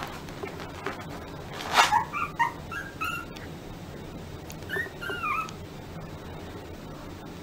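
Small puppy whimpering and yipping. A brief noisy burst comes about two seconds in, followed by a quick run of short, high, squeaky yips, then a couple of longer whines that rise and fall about five seconds in.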